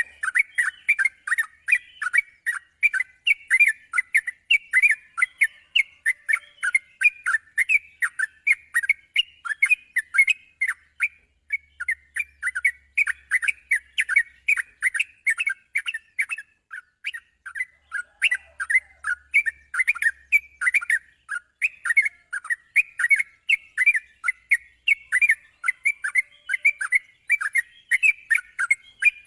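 Yellow-vented bulbul (trucukan) song: a long run of short, quick chirping notes, several a second, with no break.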